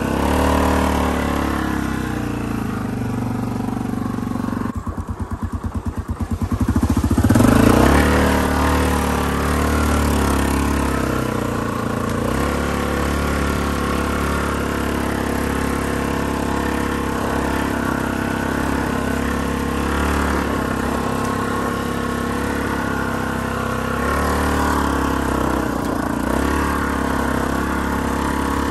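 Yamaha ATV engine running under load while climbing a steep slope. About five seconds in it drops to a slow chugging for a couple of seconds, then revs back up and runs steadily again.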